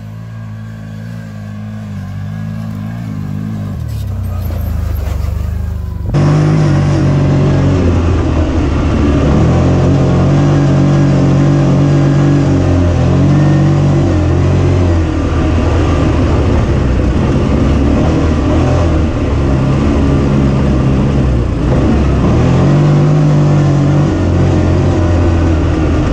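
CFMOTO side-by-side UTV engine running under throttle on a sandy hill, growing louder over the first few seconds. About six seconds in it switches to the engine heard up close from inside the cab while driving a dirt trail, louder, its pitch rising and falling with the throttle.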